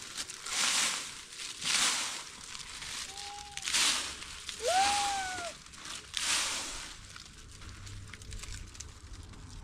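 Repeated rough scraping or crunching strokes, about one every second or so, with two short squeaks near the middle, the second rising and then falling.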